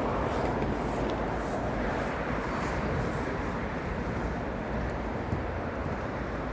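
Steady low rushing noise with no speech.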